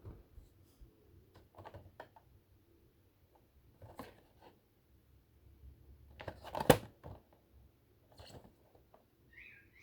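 Light handling noises, scattered soft rustles and clicks, with one sharp knock about two-thirds of the way through.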